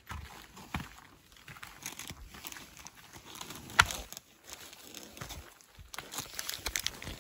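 Soft rustling and light crunching of footsteps on the forest floor, with one sharp click a little past halfway.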